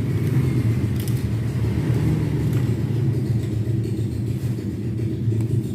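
A steady low rumble, with a couple of faint clicks about a second in and again later.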